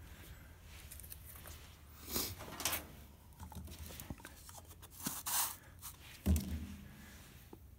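Rustling and handling noises as hands work around a brake lathe's tool bar, with a dull knock about six seconds in.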